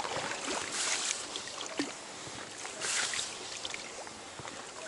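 Quiet water sounds around an inflatable rowing boat, with two soft swishes, about a second in and about three seconds in, and a few faint ticks.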